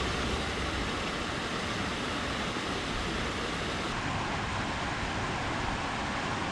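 Water spilling over a low concrete weir, a steady rushing hiss.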